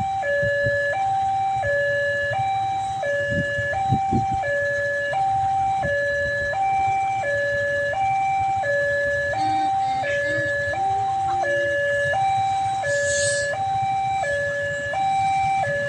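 Railway level-crossing warning alarm sounding a steady two-tone pattern, a higher note and a lower note alternating about once every second and a half, signalling an approaching train.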